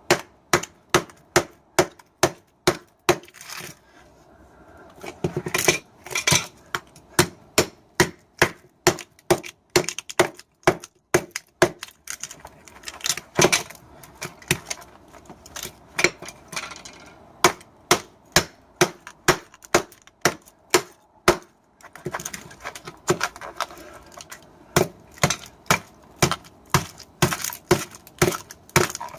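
Repeated sharp strikes, about two a second with a couple of short pauses, as a microwave oven transformer is hammered apart to get at its copper windings.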